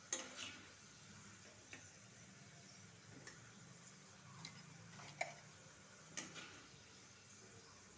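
Near quiet, broken by about seven light, sharp clicks and taps at uneven intervals, the loudest just after the start and about five and six seconds in.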